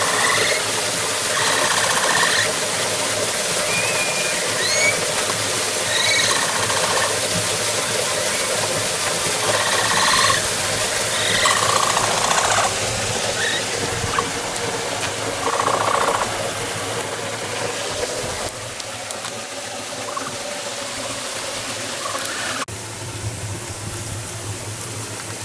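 Capybara giving short, high-pitched squeaking calls again and again, every second or two, begging for a treat; the calls thin out in the last third, over a steady hiss.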